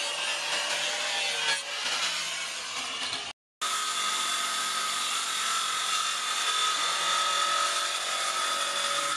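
Electric angle grinder with an abrasive disc grinding a steel sword blade, a dense scraping hiss. After a brief break about three seconds in, a steady high grinder whine with hiss runs on.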